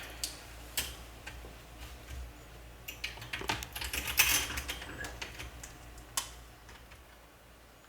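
Irregular clicks and clatter of clips and hard plastic parts being handled and fitted onto a plastic pet carrier, busiest from about three to four and a half seconds in.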